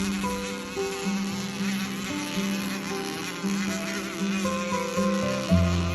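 A small 30.5cc two-stroke engine running with a high, buzzing note whose pitch wavers.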